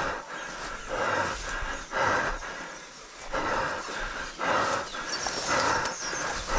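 A person breathing hard while running through tall grass, with a heavy breath about once a second and grass brushing past.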